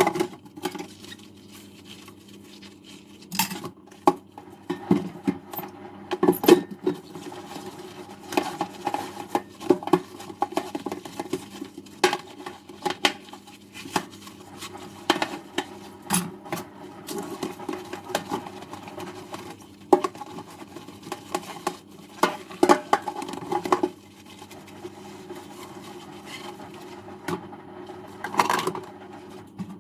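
Dishes and cutlery being washed by hand at a kitchen sink: irregular clinks and knocks of crockery and silverware over a steady background wash.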